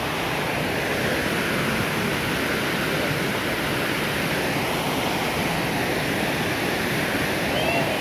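Shallow stream water rushing over rock slabs below a waterfall, a steady, even rush.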